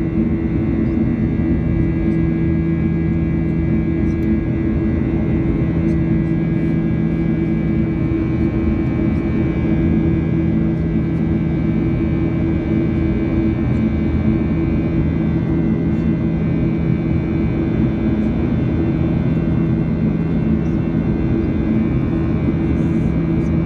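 Jet airliner cabin noise during the climb after takeoff: the steady rush of the engines and airflow heard from a window seat, with a strong low hum and a few fainter higher tones.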